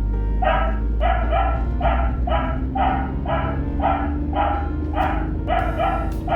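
A dog barking over and over at an even pace, about two barks a second, over a steady low rumble.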